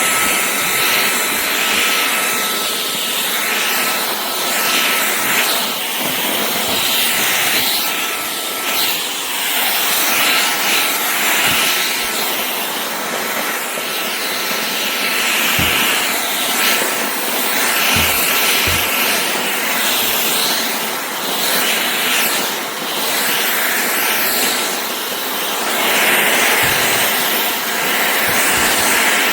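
Shark Clean & Empty cordless stick vacuum running, a steady high rushing whoosh from its motor and airflow that swells and eases slightly over time.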